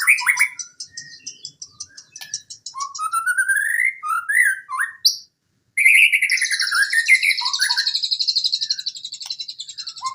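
White-rumped shama (murai batu) singing a fast, varied song: rising whistled glides and rapid high trills. The song cuts out for about half a second past the middle, then resumes with a long, buzzy high trill.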